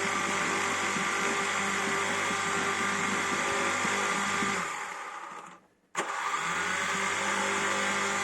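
Quadcopter drone's motors and propellers giving a steady, many-toned whine. Just over halfway through, the sound fades to near silence for about a second, then cuts back in abruptly.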